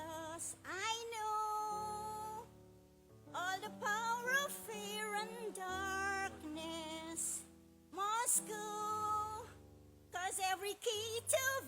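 Gospel worship song: a female voice sings long phrases with wavering, held notes over sustained instrumental backing, with short breaks between phrases.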